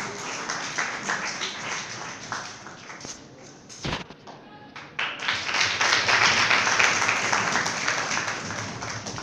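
Audience clapping: scattered at first, then swelling into fuller applause about five seconds in. There is a single dull thump just before four seconds in.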